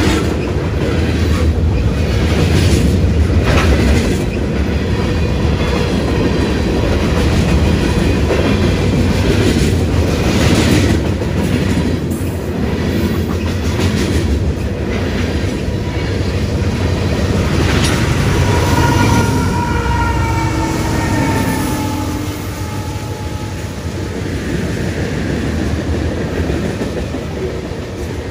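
Freight cars of a long CSX manifest train rolling past at track speed, a steady rumble with the wheels clacking over rail joints. A brief high wheel squeal, slightly falling in pitch, rises about two-thirds of the way through.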